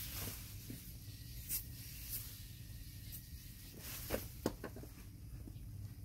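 A few short hisses from an aerosol can of foaming glass cleaner in the first couple of seconds. Then a quick cluster of crinkling and rustling about four seconds in as paper towels are handled.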